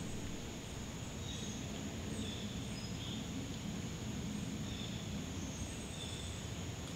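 Outdoor woodland ambience: a steady low rumble of background noise with faint, short high chirps scattered through it.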